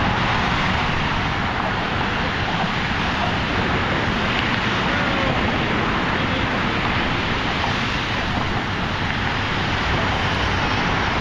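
Steady wind rush buffeting the microphone, mixed with a continuous rumble of traffic.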